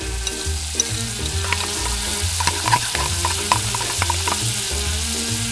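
Chopped onion sizzling in hot cooking oil in a miniature frying pan, a steady hiss with scattered small clicks and pops as it is stirred. Soft background music plays underneath.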